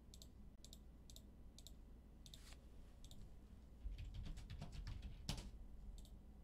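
Faint computer mouse clicks and keyboard typing, with a quick run of key taps about four to five seconds in.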